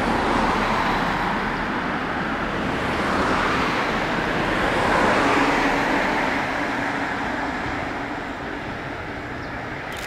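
Cars passing on a road close by: tyre and engine noise that swells to its loudest about five seconds in and then fades away.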